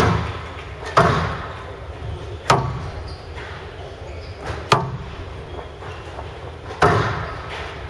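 Squash ball cracking off rackets and the court walls during a rally, five sharp hits one to two seconds apart, each echoing in a large hall.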